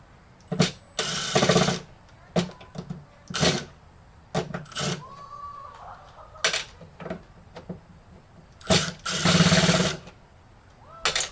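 Power screwdriver whirring in short bursts as it backs screws out of a TV's back panel. There are two longer runs of about a second, about a second in and again near the end, with short bursts and clicks in between.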